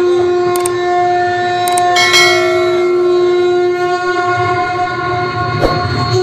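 A steady, held musical drone on one pitch, with a few sharp metallic clashes of the sankirtan troupe's large brass hand cymbals: one about half a second in, a pair around two seconds in, and one near the end.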